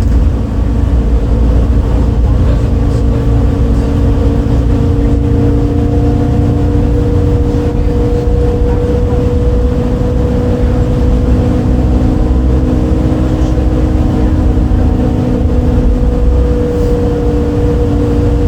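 Six-cylinder MAN D0836 LOH 63 diesel engine of a 2008 MAN Lion's City A37 articulated bus, heard from inside the bus, running under way with a deep rumble and a steady whining drone. The pitch creeps slowly upward. This is the rather odd engine sound the bus made that day, unlike a MAN normally sounds.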